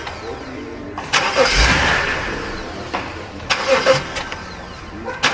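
BMW engine being cranked and started after a valve cover replacement, priming it and running it to check for leaks. Loud surges come three times: about a second in, at about three and a half seconds, and at the very end.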